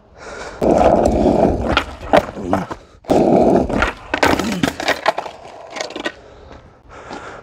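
Skateboard wheels rolling loudly over rough asphalt in two stretches, then a sharp pop about four seconds in as a half-cab heelflip is tried, and the board clattering onto the pavement when the trick isn't landed.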